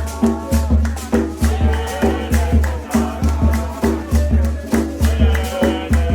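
Background music with a steady, driving beat: a heavy bass pulse and regular sharp hits, with a shaker-like rattle.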